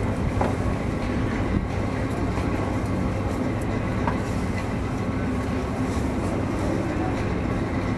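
Steady low rumbling background noise, with a few faint short knocks.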